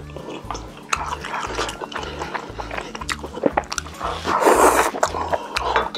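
Close-miked eating: wet chewing and biting of tteokbokki and sundae, full of small sharp mouth clicks. About four seconds in comes a louder rushing slurp lasting under a second.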